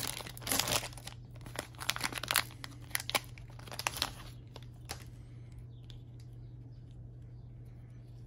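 Plastic wrapper of a Panini Contenders football card pack being torn open and crinkled by hand: a run of sharp crackles and tearing over the first five seconds or so, then much quieter.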